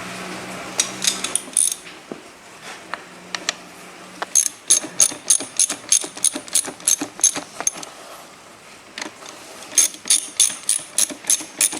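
Socket ratchet wrench clicking in two quick runs of about five clicks a second, the sound of bolts being run down on the engine.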